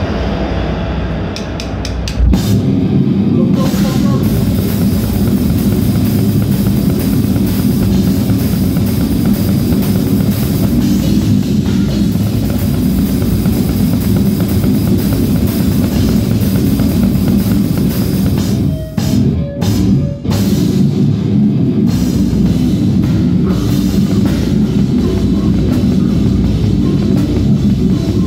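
Slam death metal band playing live: drum kit with cymbals and distorted guitars, crashing in loud about two seconds in after a quieter opening, with two short stops about two-thirds of the way through.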